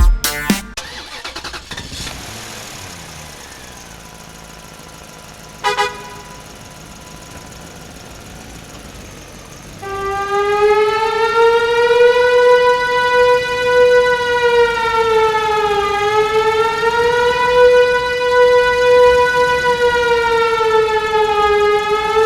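Fire-truck siren wailing with a slow rise and fall in pitch, starting about ten seconds in. A short beep sounds about six seconds in.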